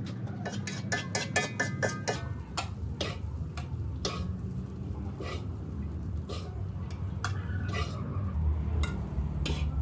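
Spatula clinking against a pan while fried rice is stir-fried: a quick run of clinks for the first two seconds or so, then single strikes about every half second, over a steady low hum.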